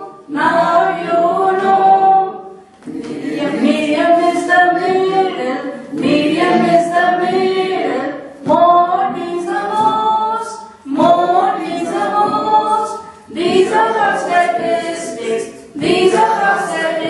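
A small mixed group of adult voices singing unaccompanied, led by a woman's voice at the microphone, in short phrases of two to three seconds with brief breaks between them.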